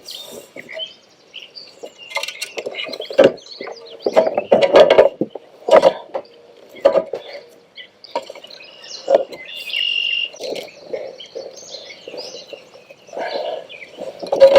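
Irregular knocks, thumps and rustling from handling a freshly caught bass and gear in a kayak, with a few short high chirps in the background.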